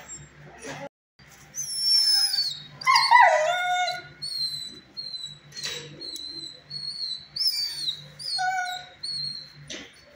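Dog whining and whimpering in high, downward-gliding cries. There is one longer howl-like cry about three seconds in, then a string of short, high yelps.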